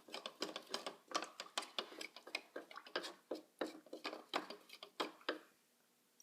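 Rapid, irregular clicking and tapping of small hard objects, several a second, stopping about five seconds in.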